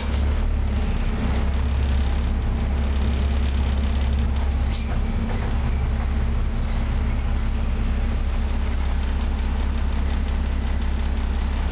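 Volvo B7TL double-decker bus under way, heard from the upper deck: its engine runs with a steady low drone.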